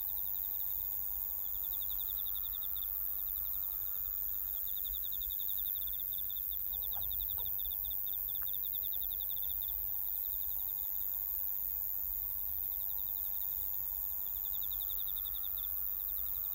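Crickets chirping in runs of quick pulses that swell and fade, over a steady high-pitched whine and a low rumble.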